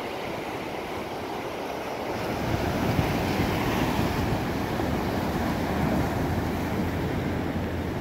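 Small ocean waves breaking and washing up the beach in a steady hiss of surf. From about two and a half seconds in, wind rumbling on the microphone is added and the sound grows louder.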